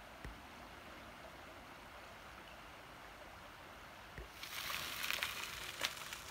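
Steady faint rushing of a creek, with two soft low thumps. About four and a half seconds in, a louder crackling hiss with sharp clicks takes over.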